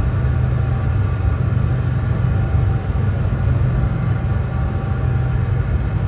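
Brown noise: a steady, deep rumbling hiss with most of its energy in the bass, unchanging throughout.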